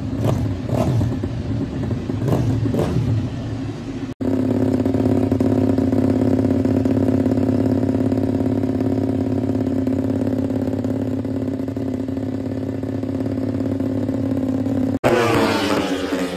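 Moto3 racing motorcycles with GPR exhausts (250 cc single-cylinder four-strokes). First, bikes at high revs pass by several times, the pitch rising and falling with each pass. Then, close up, one bike's engine runs at a steady pitch for about ten seconds. Near the end, another group passes with a falling pitch.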